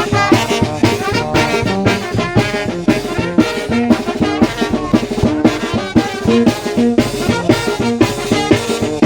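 Mexican brass band (banda de viento) playing live: trombones and trumpets carry the tune over a steady drum beat.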